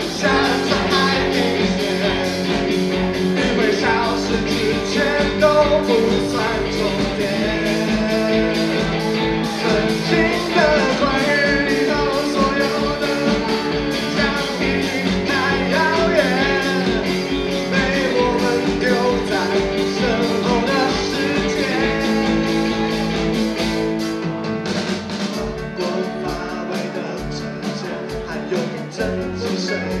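Live rock band playing a song: a male singer over electric guitars, keyboard and drums. About 24 seconds in, the drums ease off and the sound thins to a quieter passage.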